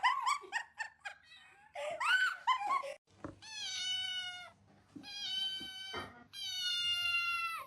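Domestic cat meowing: a few short calls at first, then three long, drawn-out meows of about a second each, held at an even pitch.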